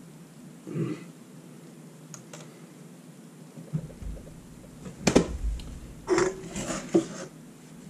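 Small objects being handled and set down on a desk: a few knocks and rustles, the sharpest knock about five seconds in.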